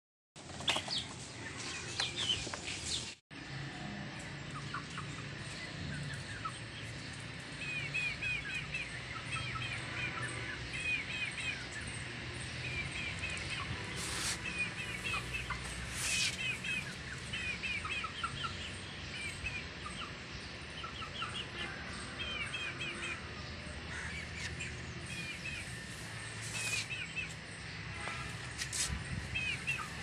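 Young chickens peeping: short high chirps in quick runs of three or four, repeated again and again, over a steady low hum, with a couple of sharp clicks midway.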